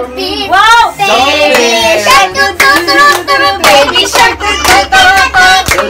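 Music with a child's singing voice over a steady clapping beat, about two claps a second.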